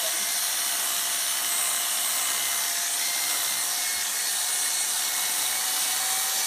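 Electric dog grooming clippers running steadily as the blade shears through a miniature schnauzer's curly coat, giving a constant whine over a hiss.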